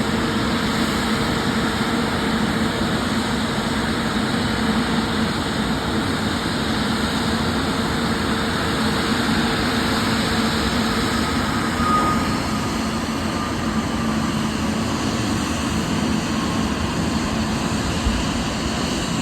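Steady, even jet engine noise from airliners, with a faint hum that fades about twelve seconds in.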